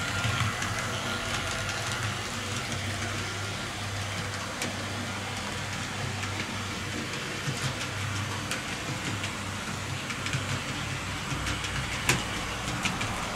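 Two TT-scale model railcars of the ČD class 850 running on sectional track: a steady hum of their small electric motors and wheels rolling on the rails. A few sharp clicks break in, the loudest near the end.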